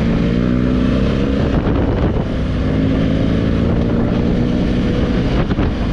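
Honda Africa Twin's 1100 cc parallel-twin engine pulling under way, its pitch climbing slowly, with a brief dip about two seconds in. Wind rushes over the helmet or action-camera microphone throughout.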